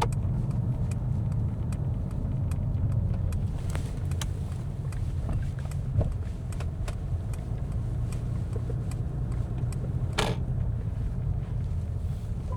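Cabin noise of a Mercedes-Benz S 450d on the move: a steady low rumble of tyres and drivetrain. Faint scattered ticks sound throughout, and a short, louder noise about ten seconds in.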